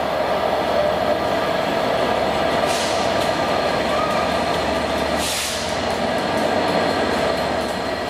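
A locomotive-hauled passenger train, a Class 67 diesel locomotive with its coaches, rolling past at low speed with a steady rumble. Two short hisses come about three and five seconds in.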